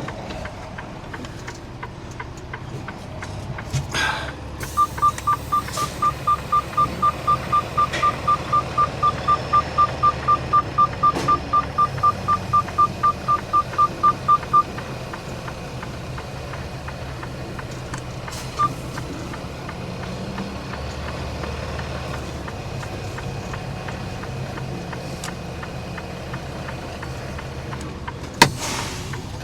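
Semi-truck cab warning beeper going off, a fast run of identical beeps about three a second for roughly ten seconds, then one more beep, over the steady low hum of the truck's idling diesel engine. A knock about four seconds in and another near the end.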